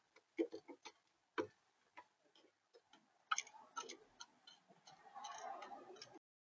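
Irregular sharp taps and clicks on a plastic bird feeder from an animal feeding at it, with a rustling patch near the end before the sound cuts off suddenly.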